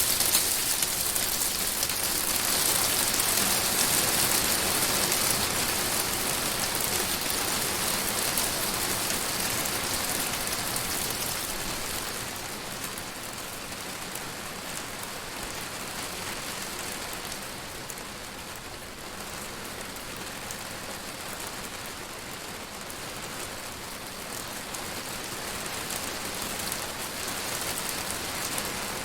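Hail and rain pelting a greenhouse roof, heard from inside: a dense, steady patter of small impacts. It is heaviest at first, eases off about twelve seconds in, and builds slightly again near the end.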